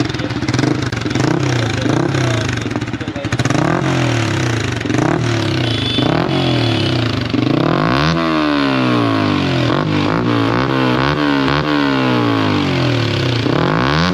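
Yamaha R15 V4's single-cylinder engine revved through a Yoshimura Alpha exhaust with its dB killer fitted. It gives short throttle blips about once a second, then near eight seconds in sweeps up high and is revved hard again and again before dropping back. The dB killer damps the note a little, but it stays loud on the high notes.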